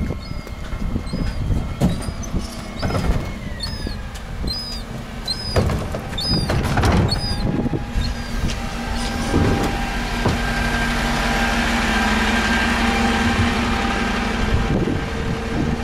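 A motor vehicle running close by: a steady low engine hum with a rushing noise that swells to its loudest a few seconds past the middle. Before it, a short high chirp repeats about twice a second for the first half.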